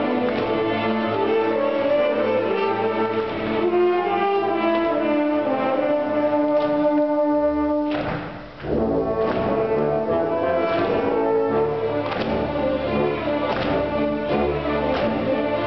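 Youth symphony orchestra playing live, the strings holding sustained chords. About halfway through the music breaks off briefly, then comes back in with deep bass notes underneath.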